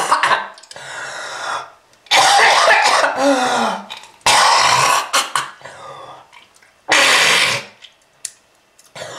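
A person coughing hard in repeated harsh fits, several loud bursts a couple of seconds apart with quieter rasping breaths between them. It is a heavy chest cough presented as a smoker's cough.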